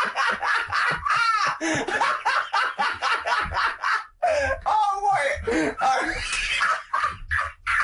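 Men laughing hard in quick repeated bursts, with a high-pitched laugh about five seconds in and a few words mixed in.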